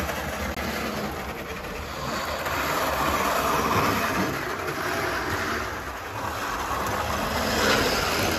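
OO gauge model Blue Pullman train running along the layout's track, its motor and wheels making a steady rattling whirr. It swells as the train passes close, loudest around the middle and again near the end.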